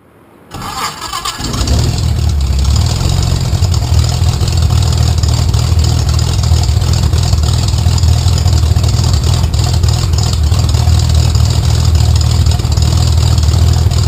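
Corvair-based air-cooled flat-six aircraft engine on a Panther LSA cranking and catching about a second in, then running steadily at idle.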